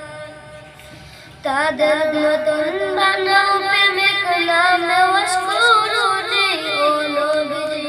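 A boy singing a Bengali Islamic gojol solo. A held note fades out in the first second, then after a short pause a new phrase begins, its melody wavering and ornamented, ending on a long held note that fades.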